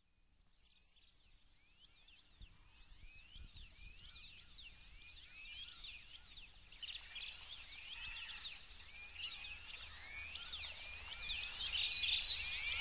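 Birdsong fading in and growing steadily louder: many small birds giving short, quick chirps one over another, above a faint low rumble. This is the sort of birdsong that opens a song's intro.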